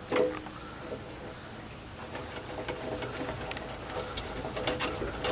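Light, irregular ticking and scraping of a wire coat hanger being worked back and forth through a Miata's rubber soft-top drain tube to root out packed dirt, getting busier from about two seconds in.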